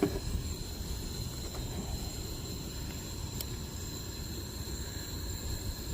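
Wind buffeting the microphone outdoors: a steady low rumble, with one faint tick about three and a half seconds in.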